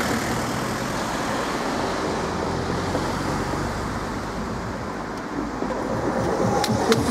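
Cars passing close by one after another, a steady mix of tyre and engine noise, with a few sharp clicks near the end.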